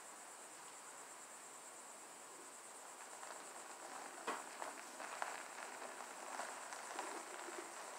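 Tyres of a bare car chassis rolling over gravel, the crunching and crackling starting faint about three seconds in and growing louder, with a few sharp cracks. Beneath it, a steady high insect drone.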